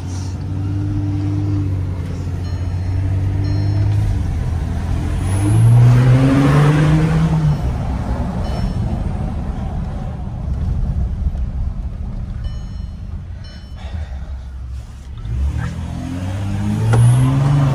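Volkswagen Amarok 3.0 V6 turbodiesel with a straight-through 3-inch stainless exhaust, heard from inside the cab while driving. The engine note climbs as the truck accelerates about five seconds in, settles back, then rises again as it pulls away near the end.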